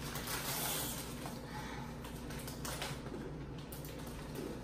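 Faint, scattered crunching of crunchy hot chips being chewed, over a low steady hum.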